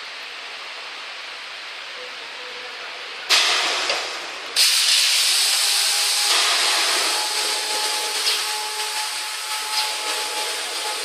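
Compressed air hissing from a uPVC window welding machine's pneumatic system: a steady faint hiss, then a sudden loud blast of air about three seconds in and another a second later that slowly trails off, with a faint steady tone underneath.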